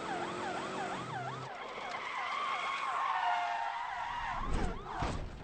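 Police car siren wailing in a fast up-and-down yelp, about three cycles a second, giving way after about two seconds to a long shrill tyre screech as the car skids. A few sharp knocks come near the end.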